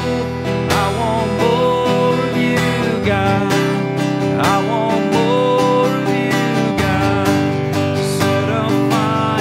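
Acoustic guitar strummed in a steady rhythm, with a melody line sliding between notes above the chords.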